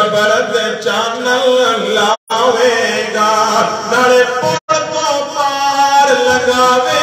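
A man chanting a slow, drawn-out devotional melody into a microphone. The sound drops out briefly twice, about two seconds and four and a half seconds in.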